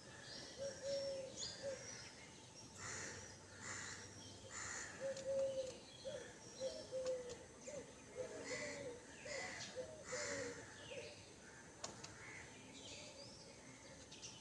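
Birds calling: house crows cawing, mixed with a run of short, low pitched notes from other birds.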